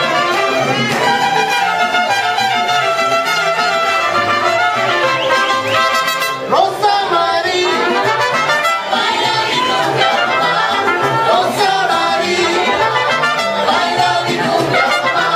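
Live mariachi band playing, with violins and strummed guitars.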